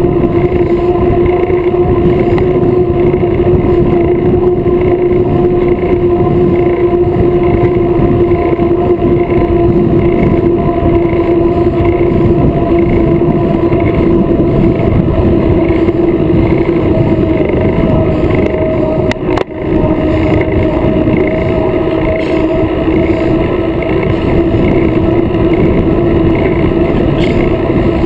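Wind and road noise rushing over a bicycle-mounted action camera's microphone while riding at race speed, a loud steady rush with a constant hum through it. It drops out briefly about two-thirds of the way through.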